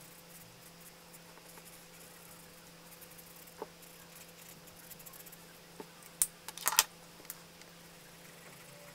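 Marker tip scratching faintly on drawing paper, then a quick cluster of sharp clicks about two-thirds of the way in, where the marker is put down and a coloured pencil is taken up.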